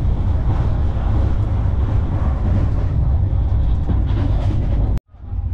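Moving train's steady low running rumble, with rattling noise above it. It cuts off suddenly about five seconds in.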